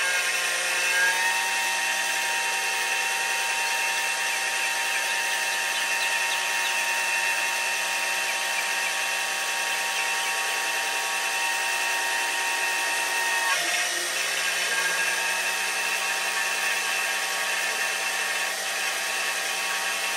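12-volt electric oil extractor pump switched on, starting abruptly and running with a steady, high-pitched motor whine while it primes, drawing oil up its suction tube. Its pitch wavers briefly about thirteen and a half seconds in, then runs on.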